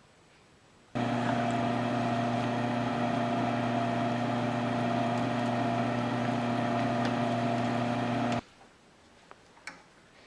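Electric machine-tool motor running at a steady, even pitch; it begins suddenly about a second in and cuts off suddenly about seven seconds later.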